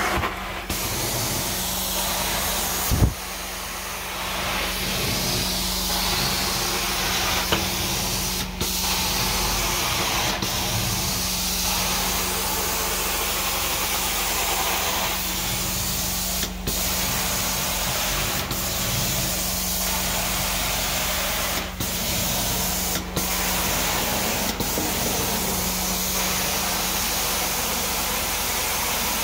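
Carpet-cleaning extraction wand hissing steadily as it sprays hot water into the carpet and vacuums it back up, over a steady machine hum. A sharp thump about three seconds in, and the hiss breaks off briefly several times.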